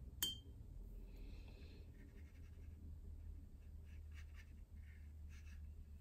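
Faint scratching of a watercolour brush on paper over a steady low hum, with one sharp clink just after the start.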